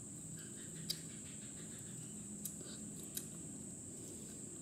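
Teeth biting and cracking at the hard shell of a bunya nut to open it: a few faint sharp clicks, about a second in, near two and a half seconds and just after three seconds. A steady high-pitched drone underneath throughout.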